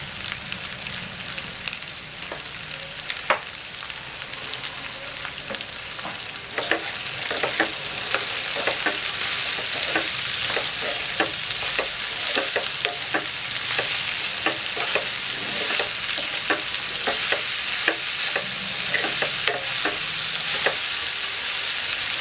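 Chopped okra with dried prawns and onions sizzling in hot oil in a nonstick frying pan, stirred with a spatula. From about six seconds in the sizzle grows louder and the spatula scrapes and knocks against the pan over and over, about twice a second.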